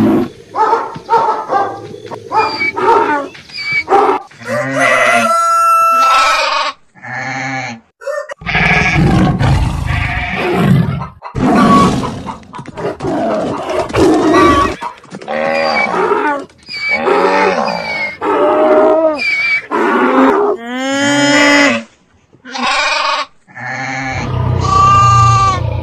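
A string of different animal calls, one after another, each lasting a second or two with short gaps between them, with brief pauses about eight seconds in and again about twenty-two seconds in.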